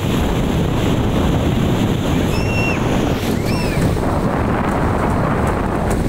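Ocean surf breaking on a sandy beach, with wind buffeting the microphone: a loud, steady rush. Two short high-pitched calls rise and fall about halfway through.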